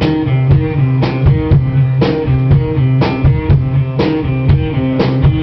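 A live band playing an instrumental passage of a rock song between vocal lines: guitar and bass over a drum kit keeping a steady beat of about two hits a second.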